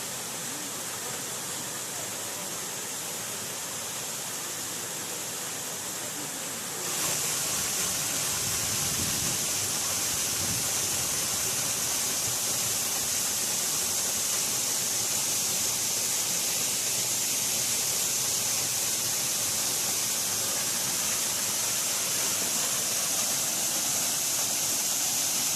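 Waterfall, water rushing steadily. It gets suddenly louder about seven seconds in, then stays steady.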